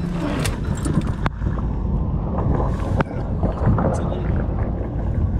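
Jeep Cherokee's engine running with a steady low rumble as it reverses slowly back down a muddy off-road slope, with two sharp knocks, about one and three seconds in.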